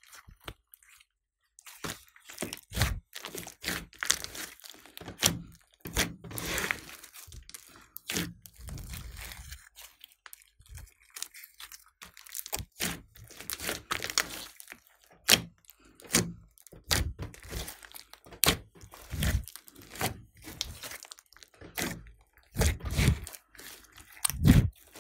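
Thick clay-mixed slime being kneaded and pressed by hand against a tabletop. Irregular squishing, crackling and popping clicks come with soft thuds, starting about a second and a half in.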